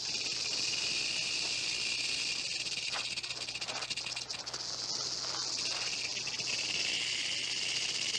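Many western diamondback rattlesnakes buzzing their rattles together in a continuous high, dry buzz, with a few faint footfalls on dirt around the middle.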